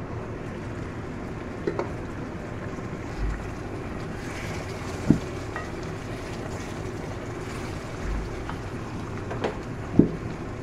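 Egg curry simmering in a pan, a steady bubbling hiss, with a wooden spatula knocking against the pan several times as the eggs are stirred.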